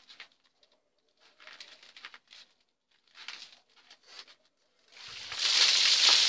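A bucket of ice-cold water poured over a person's body: a loud splashing rush that starts about five seconds in, after a few short, faint rustling bursts.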